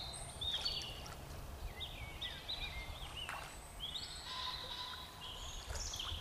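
Songbirds singing: a scatter of short whistled and chirping notes, some sliding up or down in pitch, over a steady low rumble.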